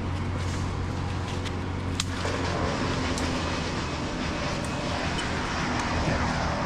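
An engine running steadily with a low, even drone, and a sharp click about two seconds in.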